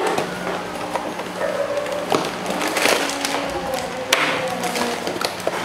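Cardboard Happy Meal boxes being pulled open and plastic-bagged toys handled: scattered sharp tears, crackles and knocks of paperboard and plastic.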